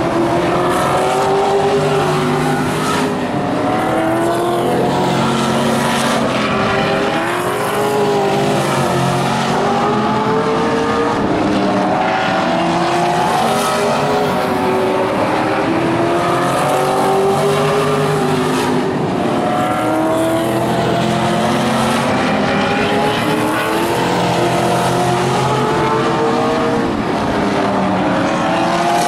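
Vintage modified stock cars racing on a short oval track. Engine notes rise again and again as the cars accelerate, then drop back as they lift, with several engines overlapping.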